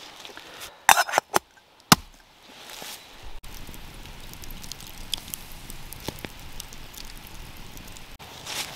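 A few sharp clicks in the first two seconds, then the glowing embers of an oak campfire log crackling softly: a steady low hiss with scattered small pops.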